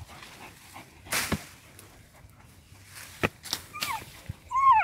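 Dogs digging in loose soil at a mouse burrow, with a few short sharp noises, then a dog whining in short high-pitched whines near the end, the last one the loudest: the eager whining of a dog hunting a mouse in its hole.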